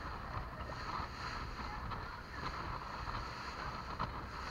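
Motorboat under way, its engine running steadily with wind on the microphone.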